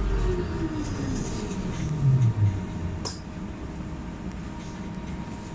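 Riding inside an Irisbus Cristalis ETB 18 articulated trolleybus: the electric traction motor's whine falls in pitch as the bus slows during the first second, over a steady low running rumble. A brief louder low hum comes about two seconds in, and a single sharp click about three seconds in.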